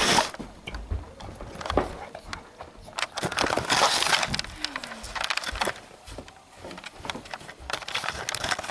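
Handling noise from a handheld video camera being carried about: irregular rustling, rubbing and knocks against the body, loudest about three to four seconds in.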